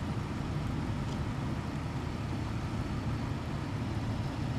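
Truck engine idling steadily as the donor vehicle, charging a dead battery through jumper cables.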